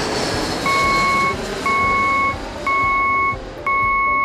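Warning beeper on motorized aircraft boarding stairs as they drive up to the aircraft: a loud single-tone beep about once a second, each lasting most of a second, starting under a second in, over a low vehicle hum.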